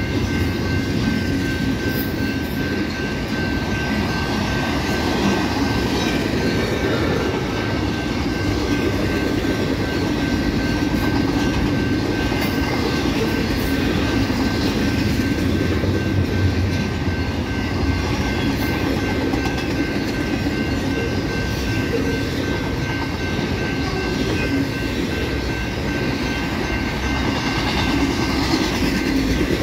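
Union Pacific double-stack container train rolling past at speed, mid-train: a steady rumble of the well cars' wheels on the rails, with a thin steady high-pitched tone over it.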